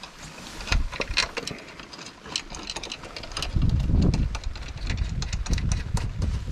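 Ratchet spanner clicking in quick, irregular runs as the strut top-mount nuts are run down. Wind buffets the microphone from about halfway through, a low rumble that is the loudest sound.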